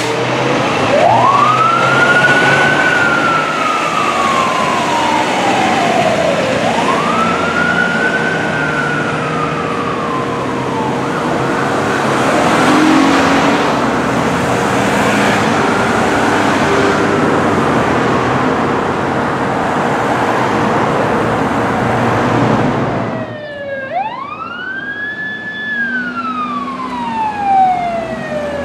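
Fire engine siren wailing in slow rises and falls, over loud engine and road noise with a steady tone underneath. About 23 seconds in, the sound cuts abruptly to another siren wailing more cleanly over quieter surroundings.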